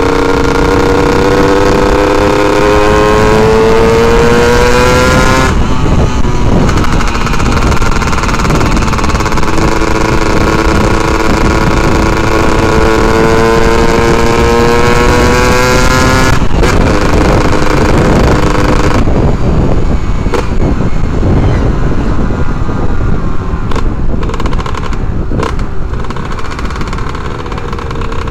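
Yamaha F1ZR's two-stroke single-cylinder engine accelerating through the gears, with wind rushing over the microphone. The pitch climbs, drops at a gear change about five seconds in, climbs again, and drops again about sixteen seconds in. After about nineteen seconds the engine eases off to a lower, quieter run.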